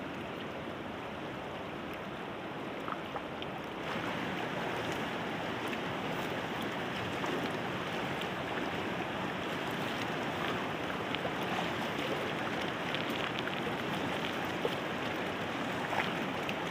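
Fast-flowing river water rushing over rocks, a steady rush that grows a little louder about four seconds in.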